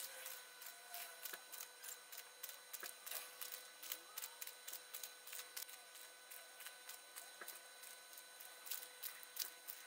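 Faint, irregular light ticks and crackles of fingers sprinkling grated cheese onto egg-washed dough balls on a parchment-lined baking tray, over a faint steady whine.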